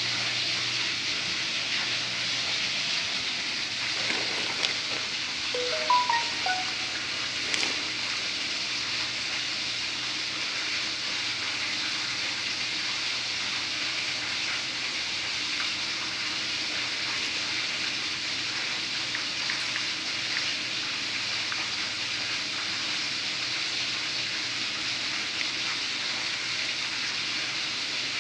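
Chicken wings frying in hot oil in a pan: a steady sizzle.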